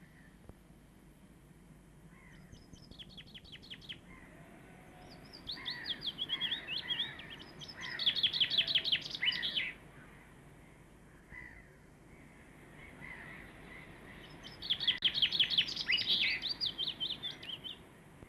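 Songbird singing in quick, high trilled phrases, three bursts of song: a short one about three seconds in, a longer run from about five to ten seconds, and another around fifteen to seventeen seconds.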